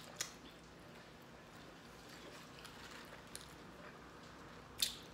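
Faint eating sounds over low, steady room noise, with a soft click just after the start and a sharper click near the end.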